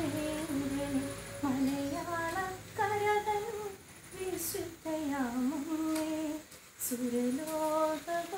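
A woman singing a Malayalam devotional song solo, without accompaniment, in long held notes that slide between pitches, pausing twice for a quick breath between phrases.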